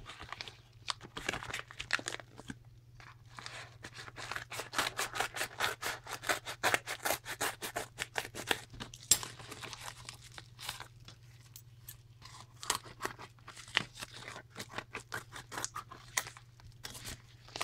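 Scissors cutting through a plastic mailing envelope: a long run of quick snips, thickest from about four to nine seconds in and sparser later, with the plastic crinkling as it is cut and handled.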